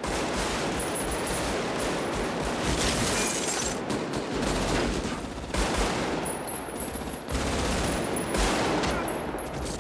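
Sustained automatic assault-rifle fire from several guns in a street gunfight. Long bursts run together, with a few brief breaks.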